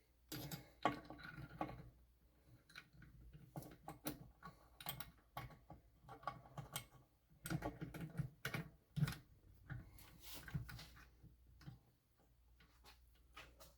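Small metal engine parts clicking and knocking as they are handled, in an irregular run of light taps, some in quick clusters.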